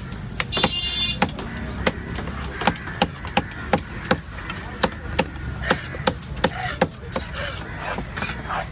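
Heavy fish knife chopping a trevally into chunks on a wooden block: quick, sharp thwacks, about two to three a second, irregularly spaced.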